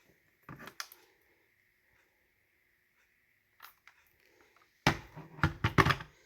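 Handling noise: a few sharp clicks and knocks, then a quick run of louder knocks and clatter about five seconds in, over a faint steady high-pitched tone.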